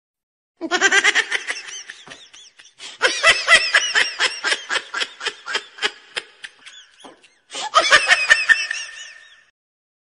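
A baby laughing, as a stock sound effect. It comes in three bouts of giggling, each a string of quick, rhythmic laugh pulses, starting about half a second in. There are short breaks near the three-second mark and past the seven-second mark.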